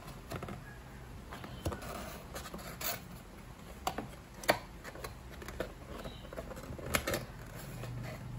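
Cardboard box and paper being handled while unboxing: soft rustling and sliding, with scattered taps and clicks, the sharpest about four and a half seconds in.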